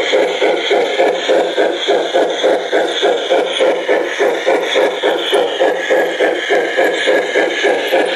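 Garden-scale model steam locomotive chuffing steadily at about three chuffs a second as it runs.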